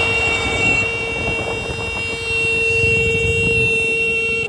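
A long steady horn-like tone, with a shrill upper part over a lower note, held unchanged and cut off abruptly at the end, over a low rumble.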